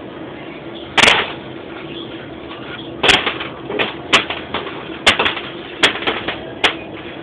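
Sharp metal clinks and knocks, about eight in all and spaced unevenly, from the valve body of a Ford A4LD automatic transmission being handled and set down. A steady background hum runs underneath.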